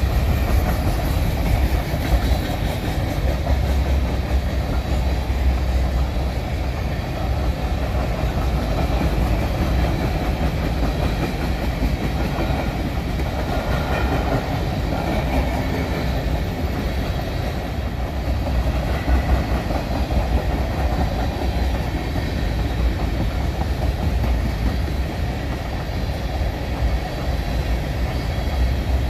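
Norfolk Southern freight train rolling past at speed: a steady rumble of cars on the track with wheels clicking over the rails.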